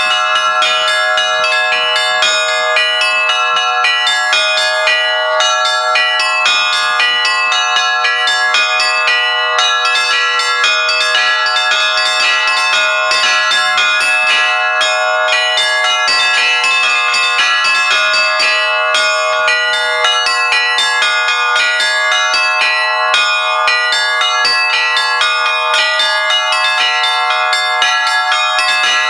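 Russian church bells rung by hand in a continuous peal: a fast, dense pattern of strikes on many bells of different pitches, over steady, sustained ringing tones.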